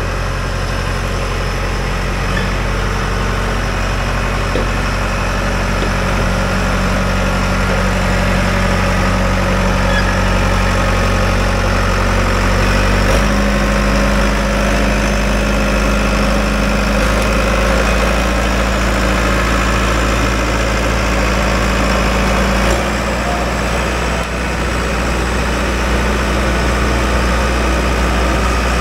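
John Deere 650J crawler dozer's diesel engine running steadily as the machine drives on its freshly reinstalled hydrostatic transmission. The engine note changes about a third of the way in and again past two thirds.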